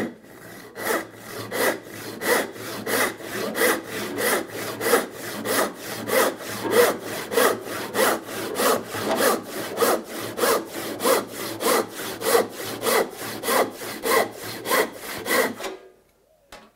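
Handsaw ripping along the grain of a softwood board in steady, even strokes, about 26 in all, until the cut is through about 16 seconds in.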